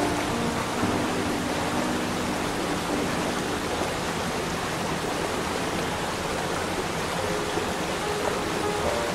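Waterfall cascades rushing over rock: a steady, even hiss of falling water. Soft held music notes sit faintly underneath in the first few seconds and again near the end.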